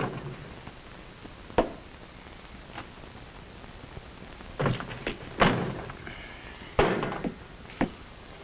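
Scattered knocks and thunks of a metal tumbler and a cupboard being handled on a kitchen shelf: about half a dozen separate clunks spread over several seconds, the loudest a little past halfway.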